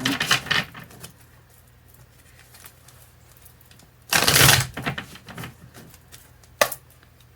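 Tarot deck being shuffled by hand: a quick riffle of cards about four seconds in, with light clicking of cards around it and one sharp snap near the end.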